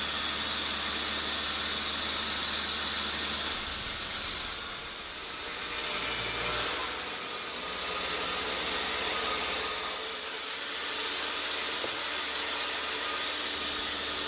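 A steady hiss, strongest in the high range, swelling and easing slowly a few times.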